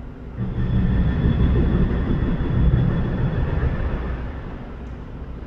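Heavy diesel engine rumble that swells about half a second in, peaks near the middle and fades over the last second or so, with a faint steady high whine above it.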